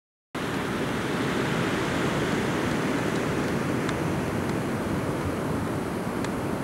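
Wind blowing on the camcorder's microphone: a steady, dense noise. The sound drops out to silence for a moment at the very start.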